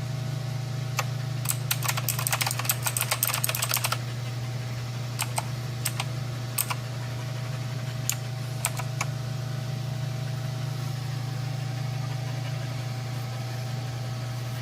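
Clicky mechanical keyboard (Eastertimes) being typed on: a quick flurry of keystrokes about two to four seconds in, then scattered single key presses that stop after about nine seconds. A steady low hum runs underneath.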